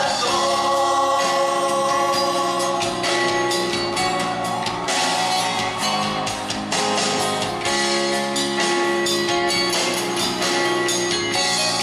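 A live band playing a pop song, with singing over sustained chords and regular drum hits.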